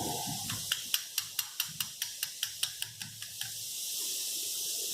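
A quick run of light clicks, about five a second for nearly three seconds, as a gear is pressed onto its shaft in a small vise during plastic gearbox assembly.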